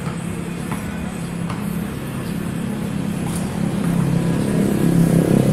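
A motor vehicle's engine running steadily close by, a low hum that grows louder over the last couple of seconds. A few faint sharp knocks sound over it.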